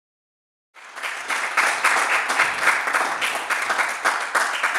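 Audience applauding, starting about three-quarters of a second in and beginning to die away near the end.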